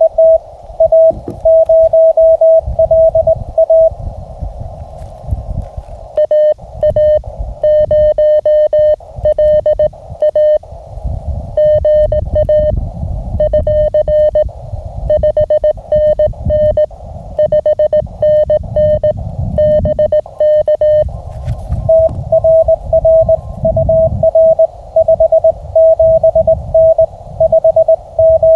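Morse code (CW) tones from a Mountain Topper (MTR) QRP transceiver, keyed on and off at a steady speed over the hiss of the receiver's narrow audio filter. From about six to twenty-one seconds the keying comes in a slightly lower, buzzier tone before the original tone returns, with a low rumble beneath throughout.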